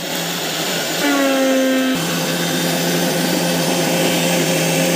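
Electric mixer grinder (mixie) running at speed, wet-grinding coconut, green chilli and water into chutney. It is a loud, steady motor whine, with a brief higher tone between about one and two seconds in.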